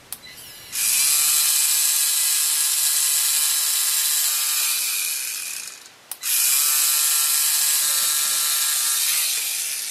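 3Doodler 3D pen's filament-feed motor running while it extrudes plastic, a loud mechanical whirring in two long runs with a brief stop between them.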